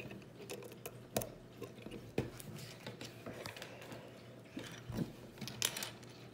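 Small plastic Lego pieces clicking and clattering as they are handled and pressed into place, a few sharp ticks spread unevenly through.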